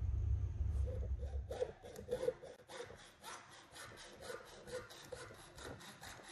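Hacksaw cutting through copper pipe: fast, even back-and-forth strokes starting about a second and a half in. Before that, a low steady hum.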